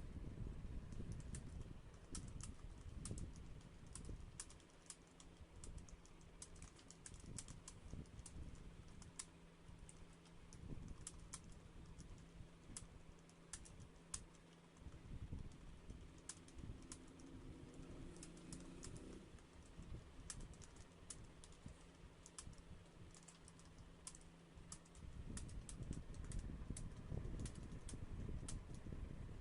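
Fast typing on a computer keyboard: a rapid, irregular stream of key clicks, with a faint steady low hum beneath for most of the time.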